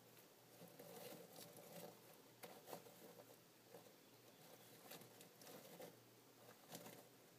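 Faint, irregular clicks and rustles of bark mulch chips shifting as a Florida box turtle crawls over them, over a low steady hum.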